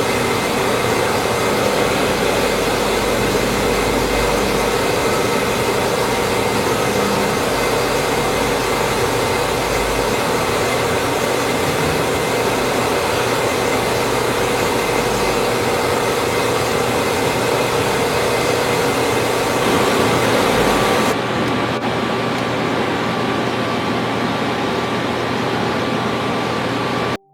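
CNC machine cutting metal: a steady hiss of machining noise with several steady tones through it. The high part of the hiss drops away about seven seconds before the end.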